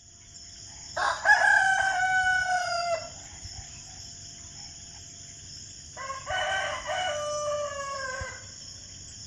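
A rooster crowing twice, each crow about two seconds long and falling in pitch at the end, over a steady high insect-like trill.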